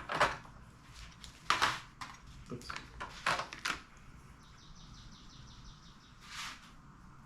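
A handful of short scrapes and clatters from parts being handled, irregularly spaced, mostly in the first four seconds, with one more near the end.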